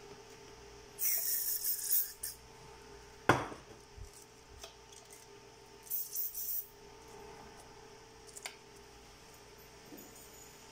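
Aerosol quick-dry contact cleaner sprayed in two short hissing bursts, about a second in and again around six seconds, onto corroded battery connectors. A sharp knock comes between the bursts.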